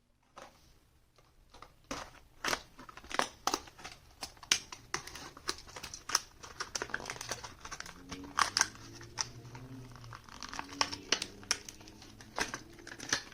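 Plastic blister packaging and card backing of Hot Wheels die-cast cars being handled and opened. It makes irregular crinkling with sharp crackles and clicks that pick up about two seconds in.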